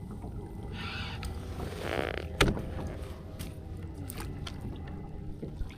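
Water sloshing and splashing around a kayak, with a few small knocks on the hull and one sharp knock a little over two seconds in.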